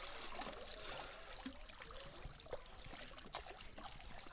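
Faint trickling and lapping of swimming-pool water around a person standing in it, with scattered small drips, slowly settling.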